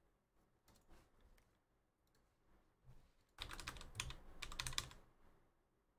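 Typing on a computer keyboard: a few faint key clicks, then a quick run of clicks lasting about a second and a half past the halfway point.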